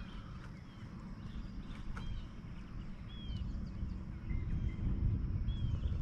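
A steady low rumble of wind on the microphone over open water, with several short, curving bird chirps scattered through it.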